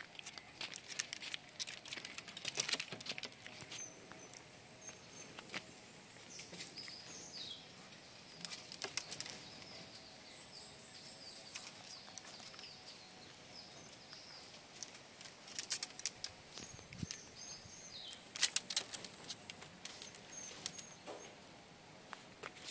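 Small dogs' paws and claws tapping and scuffing on bamboo slats in irregular bursts, with birds chirping faintly now and then.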